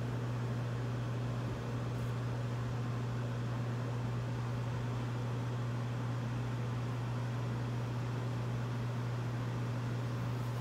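A steady low hum with a faint hiss.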